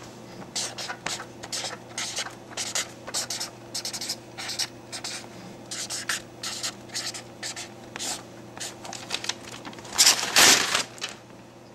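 Felt-tip marker writing on a yellow legal pad: short, irregular scratchy strokes, each letter stroke heard separately. About ten seconds in, a louder paper rustle as the sheet is folded back. A faint low hum runs underneath.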